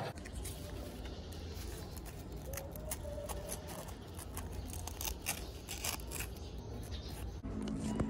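Hand-rubbing a small metal fuel-pump part with a folded scrap of sandpaper: a run of short scraping strokes over a steady low rumble.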